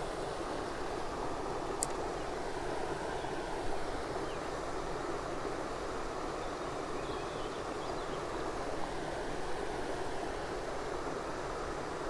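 Creek water running steadily over a shallow riffle.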